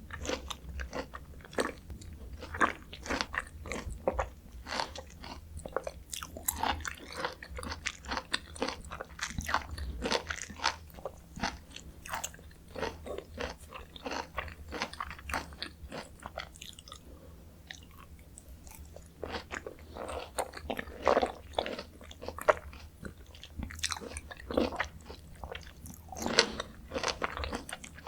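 Close-miked chewing and biting of Jeju mandarin orange segments: a dense, irregular run of wet mouth clicks and smacks, briefly quieter a little past the middle.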